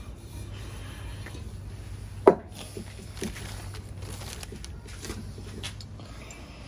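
Light handling noises as a rubber seal ring is worked onto a diesel cylinder liner, with one sharp knock a little over two seconds in and a few softer clicks after it, over a steady low hum.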